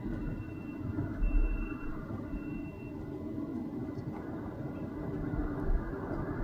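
Kubota SVL95-2s compact track loader's turbo diesel engine running under work, with its backup alarm beeping about four times, roughly once a second, then stopping about three seconds in as it stops reversing.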